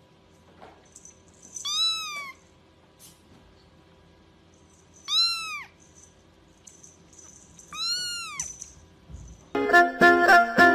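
A young kitten mewing three times, thin high-pitched calls that rise and fall, a few seconds apart. Music comes in near the end.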